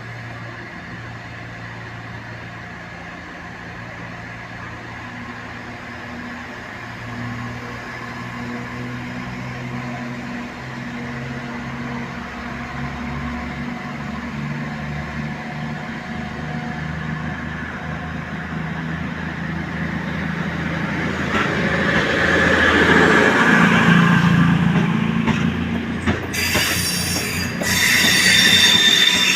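Class 221 Super Voyager diesel-electric multiple unit pulling away, its underfloor diesel engines running with a steady drone that grows louder as the train gets under way. From about three-quarters of the way through, the wheels squeal sharply over the curving station trackwork.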